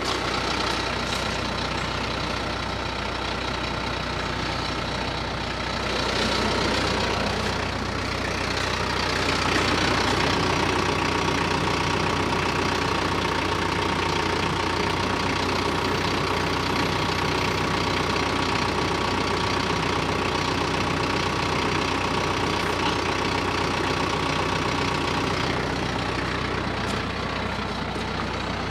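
Compact TYM tractor's diesel engine idling steadily, getting somewhat louder about ten seconds in.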